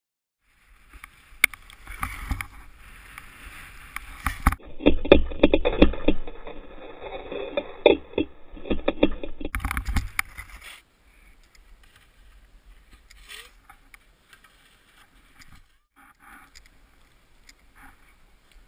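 Skis scraping and chattering over packed snow, picked up by a body-worn camera close to the skis. It is loudest and roughest through the middle, then drops to a quieter stretch of light scraping in the second half.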